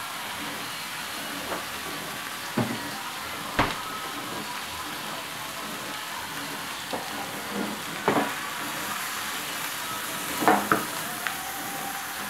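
Sole fillets frying in hot oil and melting butter in a thin non-stick pan: a steady sizzle with a few sharp spits and pops, the loudest about three and a half seconds in and near the end.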